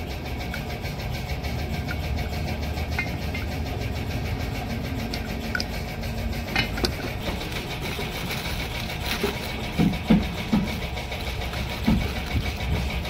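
An engine running steadily, a low even drone, with a few short knocks about ten seconds in.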